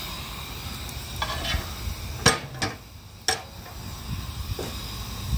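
Steady sizzling hiss of a fire-tube steam boiler with its steam blower ring running, steam drawing air hard through the fire and up the stack. Two sharp knocks about a second apart near the middle, with a brief quieter stretch between them.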